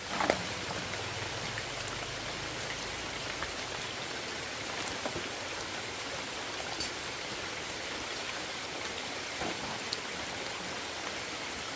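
Steady water noise, an even hiss with a few faint ticks and a light knock near the start.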